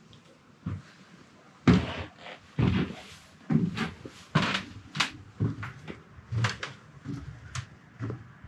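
A string of irregular sharp knocks, thumps and clatters, about a dozen of them, starting about a second and a half in, after a quiet start.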